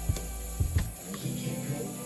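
Background music: a track with a low bass line and a few light percussive hits.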